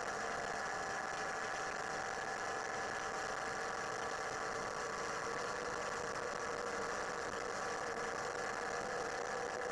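Rotax 582 two-stroke engine of a Chinook Plus 2 ultralight running steadily in cruise flight. It is a faint, even drone with a few constant tones, no change in pitch or level.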